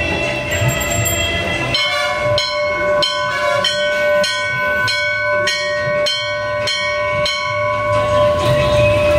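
A metal temple bell struck again and again, about ten strikes a little over half a second apart. Its ringing tone carries on between the strikes and after they stop.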